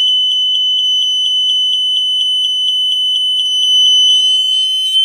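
BRK 1200 smoke alarm's horn sounding on test: one loud, high-pitched tone that pulses rapidly, about five times a second. About four seconds in it wavers, then settles into a steady tone.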